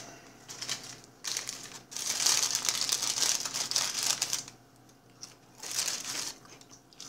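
Crinkling of a paper food bag being handled, in several bursts, the longest and loudest from about two to four and a half seconds in.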